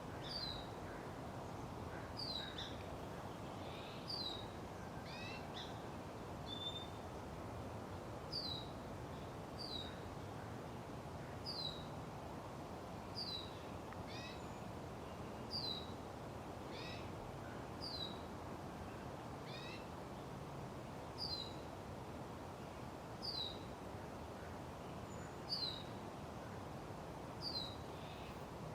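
Birds calling: a short, high, down-slurred call repeated about every one and a half to two seconds, with a few other wavering bird calls mixed in, over a steady background hiss.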